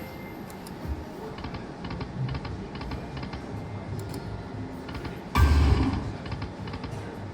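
Lightning Link slot machine in play: rapid clicking of button presses and reel stops over the machine's music, with one loud burst about five and a half seconds in.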